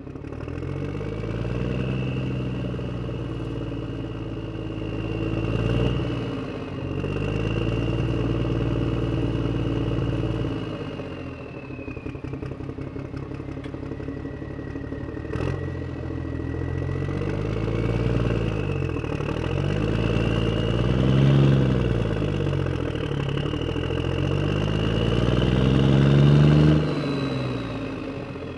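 Simulated truck engine sound from an RC dump truck's engine sound effect module, revving up and falling back several times. Around the middle it drops to a quicker, quieter idle patter for a few seconds. A high thin whine rises and falls alongside.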